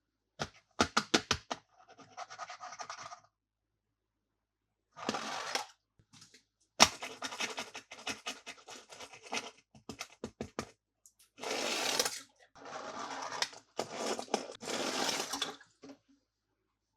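Toy packaging being handled and opened: bursts of scraping, crinkling and sharp clicks with short pauses between them.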